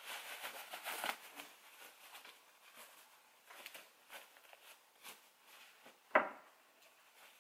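Fabric rustling softly as the lining is tucked into a sewn cloth stocking, busiest in the first second and a half, with scattered light ticks of handling. About six seconds in there is a single sharp knock, the loudest sound.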